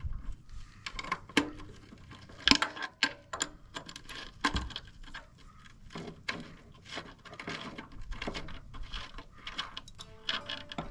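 Hand ratchet wrench clicking in short irregular runs as bolts on an old lawn tractor's engine mounting are worked loose, with metal clinks from the wrench against the bolts and frame; the sharpest clink comes about two and a half seconds in.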